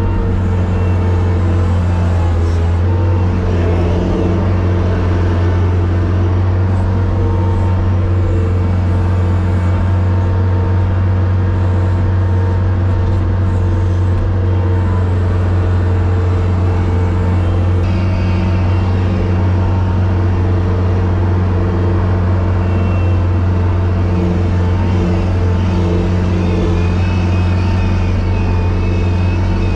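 Engine of a sidewalk snow-clearing machine running at a steady speed, heard from inside its cab as a loud, even, low drone.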